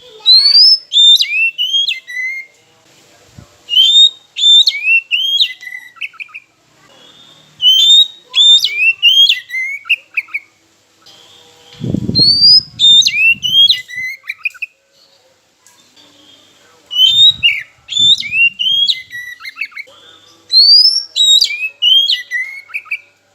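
Oriental magpie-robin (kacer) song: quick, loud whistled phrases of rising and falling notes, the same phrase coming back about six times with short pauses between. A few low bumps sound near the middle and again later.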